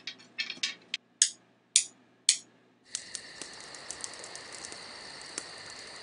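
Several short, sharp clicks, the last three the loudest, then about three seconds in a campfire starts crackling and hissing steadily.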